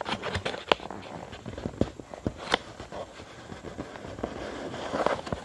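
A sheet of A5 copy paper being folded and creased by hand against a tabletop: irregular crackles and sharp taps as the paper is pressed and flattened along its folds.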